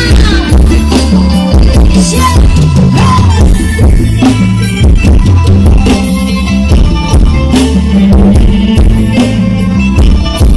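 Very loud music with heavy bass and a drum beat, with some singing, blasting from the speaker wall of a Thai rot hae procession sound truck.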